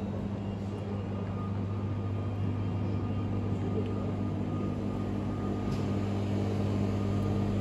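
Steady low machine hum with a faint thin whine above it.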